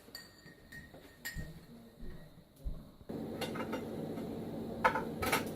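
A few light clinks and knocks of kitchenware being handled, then a steady low hum starts suddenly about three seconds in and keeps going.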